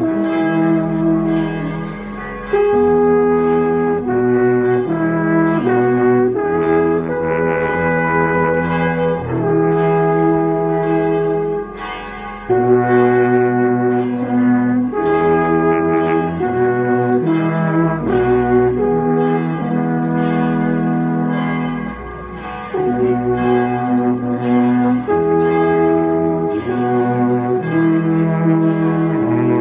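Three wooden alphorns playing a slow tune together in harmony: long held notes that change in steps. The playing breaks off briefly between phrases about two, twelve and twenty-two seconds in.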